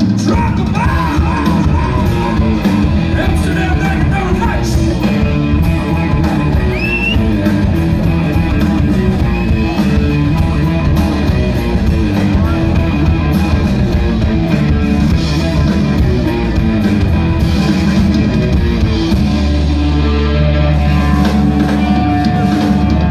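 Live hard-rock band, with distorted electric guitars, bass guitar and drum kit, playing loudly as heard from the crowd. There is a long held low note near the end.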